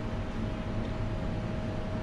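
Steady room tone of an empty café: an even low rumble with a faint constant tone running through it, with no voices or clatter.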